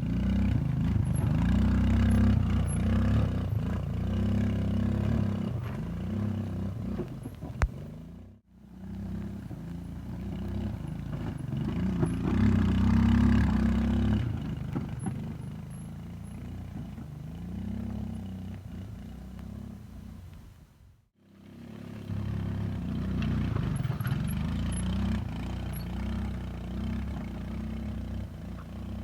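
Suzuki Access 125 scooter's single-cylinder engine running while riding, under heavy low rumble from wind buffeting the microphone. The sound drops out abruptly twice, about eight seconds in and again about twenty-one seconds in.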